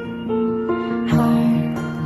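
Soft, gentle background music: slow sustained notes, with a fuller plucked-string part coming in about a second in.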